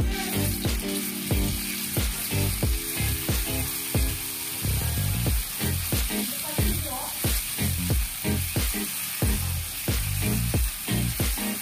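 Ground spice paste (garlic, shallots, candlenut and pepper) sizzling steadily in hot oil in a wok as it is stirred with a wooden spatula. Background music with a steady beat plays over it.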